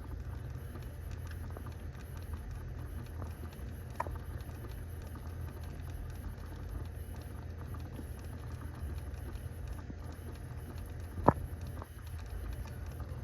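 Rapid, irregular clicking and ticking from the gears of the heat-regulation (blend door) actuator behind the glovebox of a 2015 Honda City, over a steady low hum. The gears are the faulty part. One sharper click comes about 11 seconds in.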